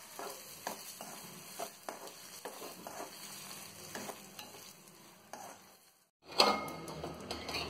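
Oil sizzling in a pan as dried red chillies and lentils fry for a tempering, with a steel spoon stirring and scraping through them in small clicks. About six seconds in the sound briefly drops out, then comes back louder.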